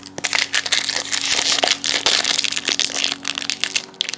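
Foil wrapper of a trading-card pack crinkling and crackling as it is handled and opened, a dense run of quick crackles.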